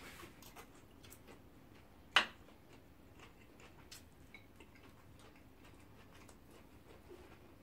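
Quiet eating sounds: metal spoons making small scattered clicks on a glass serving platter, with one sharp clink a little over two seconds in.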